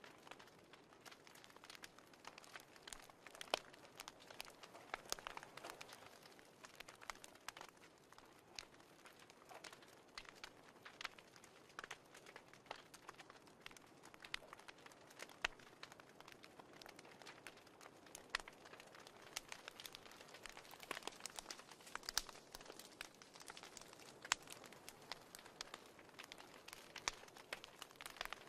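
Fireplace crackling: faint, irregular pops and snaps over a soft hiss.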